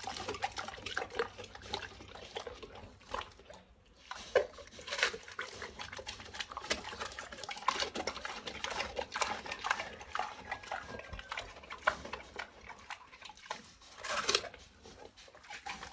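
Domestic pig chewing watermelon: a steady run of wet, irregular smacking and crunching, with a brief lull about four seconds in.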